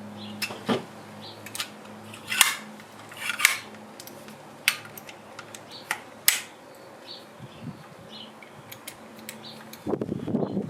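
A pneumatic air stapler being worked by hand, giving a run of sharp, irregular clicks and snaps, about eight in all, with the loudest two in the first few seconds. A faint low hum runs underneath, and handling and rustling noises come near the end.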